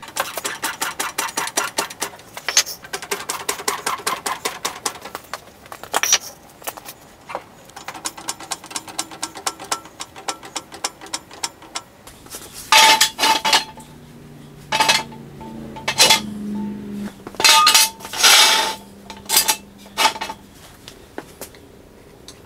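Hydraulic floor jack being pumped to lift the front of a truck, a long run of fast, evenly spaced metallic clicks and rattles. Then loud clanks, some ringing, as Harbor Freight steel jack stands are set down under the front axle.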